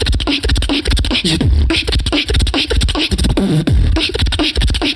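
Human beatboxing into a handheld microphone: a dense, steady groove of deep kick-drum bass hits and sharp snare and hi-hat clicks, with gliding pitched vocal sounds woven between them.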